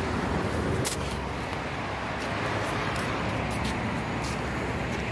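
Steady noise of a car running close by, with a few light clicks.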